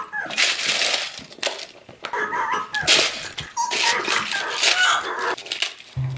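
Potato chips crunching in a series of loud, crackly bursts as a puppet's jaws chomp into a bowl of them, with squeaky, voice-like munching noises mixed in. Music starts right at the end.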